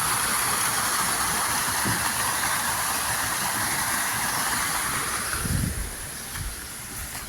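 Steady rush of flowing river water, fading away about five and a half seconds in.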